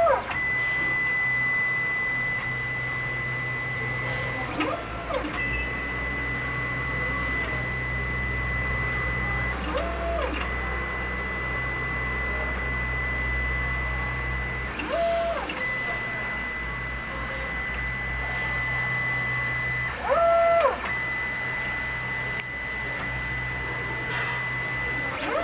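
Wanhao Duplicator 9 3D printer running its auto bed leveling routine: the stepper motors give a short rising-then-falling whine about every five seconds as the head moves from one probe point to the next. Between moves there is a steady high whine and a low hum from the machine.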